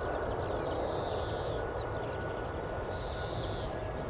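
Airbus A321neo jet engines running with a steady rushing hum and two faint steady whining tones. Small birds chirp over it throughout.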